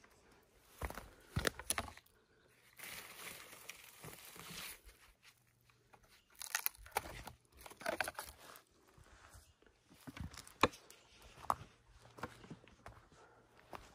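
Irregular crunching, cracking and rustling in dry forest litter, from steps and hands working the ground while picking boletes, with a few sharper snaps.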